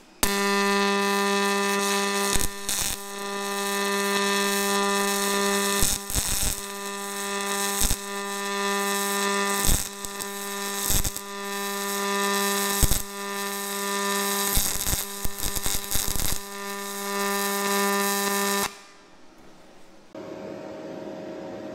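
Single-pulse MIG welding arc on aluminum with 0.035 in 4043 wire from a Yeswelder Firstess DP200: a steady buzzing from the high-frequency current pulsing, with scattered crackles of spatter. The arc stops about 18 seconds in, and a quieter steady hum follows near the end.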